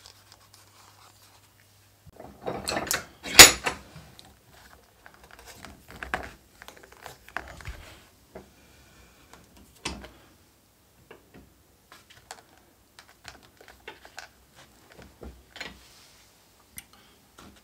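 Blue bench vise being handled and wound shut to clamp a freshly glued leather knife sheath: a clatter of knocks starting about two seconds in, the loudest about three and a half seconds in, then scattered small clicks and taps.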